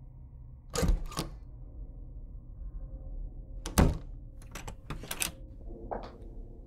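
A run of sharp knocks and thuds over a steady low hum: two about a second in, the loudest near four seconds, a quick cluster around five seconds and one more near six.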